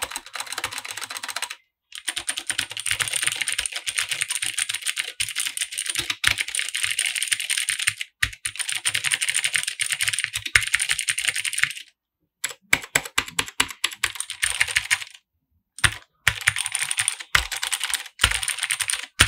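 Fast typing on an Ajazz STK61 mechanical keyboard with clicky blue Zorro switches: dense runs of key clicks, broken by a few short pauses.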